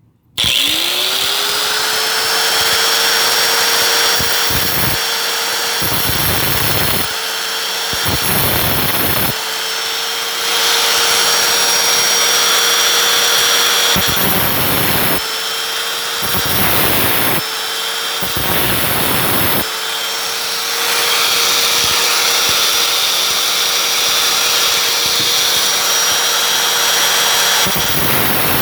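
Angle grinder with a cutoff wheel spinning up with a rising whine, then running with a steady high whine. It cuts into a metal socket in several short spells of loud grinding, so the cut is taken slowly to keep the metal from overheating. The motor cuts out near the end.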